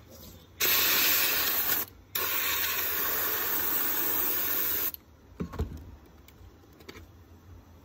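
Airbrush blowing compressed air and paint in two steady hisses, the first about a second long, the second close to three seconds, sprayed into a paper towel while it is flushed out with window cleaner. A single soft knock follows about a second later.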